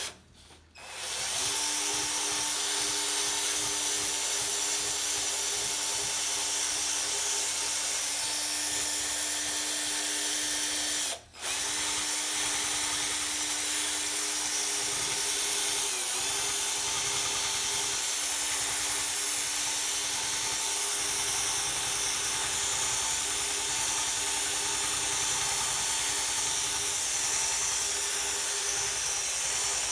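A small electric rotary power tool running steadily with an even hum, used to take rust off the steel frame. It stops for a moment about eleven seconds in and starts again, and its pitch dips briefly a few seconds later.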